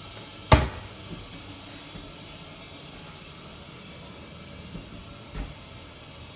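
A cabinet door shut with one sharp knock about half a second in, followed by a smaller knock and two faint knocks near the end, over a steady hiss.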